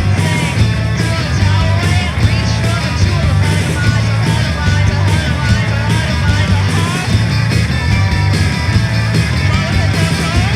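Punk rock song: loud distorted guitars, bass and drums at a steady driving beat, with a voice singing over them.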